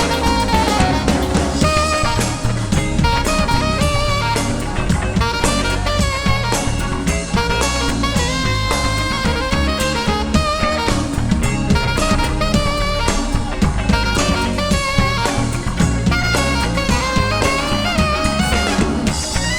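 Live band playing an instrumental passage: a drum kit keeps a steady beat under a lead instrument playing bending, gliding melodic lines.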